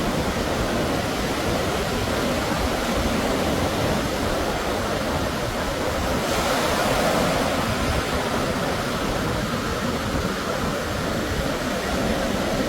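Steady rush of breaking sea surf, a little brighter about halfway through.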